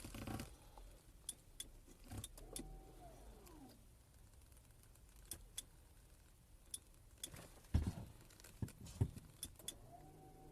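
Electromechanical parking brake of a VW-group car being cycled with its switch: a short motor whir from the rear calipers about two and a half seconds in, dying away as it stops, and starting again near the end, among scattered clicks and knocks.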